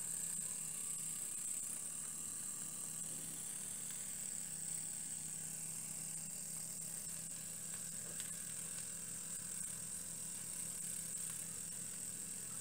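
Small homemade vertical-boiler steam engines, one of them an oscillating-cylinder wobbler, running steadily: a constant high hiss over a low hum.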